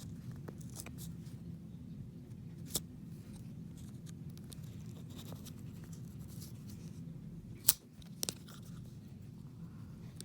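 Handling clicks of an antique folding pocket knife as its blades are worked open and shut, over a low steady hum. There is a sharp click about three seconds in, a louder snap near eight seconds, and a fainter click just after it.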